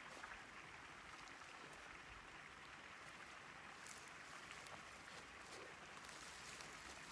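Near silence: a faint steady outdoor hiss, with a few faint clicks and rustles in the second half as a tamarack log is lifted and swung through dry grass.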